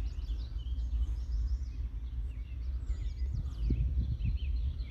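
Many small birds chirping, short quick high notes overlapping throughout, over a steady low rumble.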